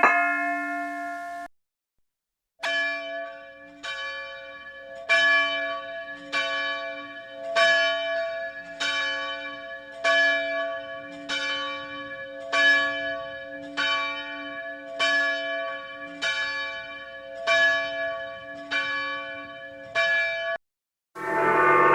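A single church bell tolling steadily, struck about every second and a bit, each stroke ringing on into the next, for roughly eighteen seconds. Before it another bell's ring fades and cuts off, and a different, denser ringing sound starts near the end.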